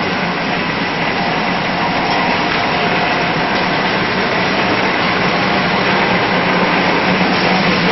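Steady mechanical din of a sawdust briquette production line running, with a constant low hum and a faint higher whine, growing slightly louder toward the end.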